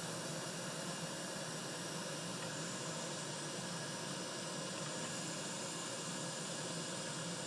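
Steady, even hiss of blowing air with no other events.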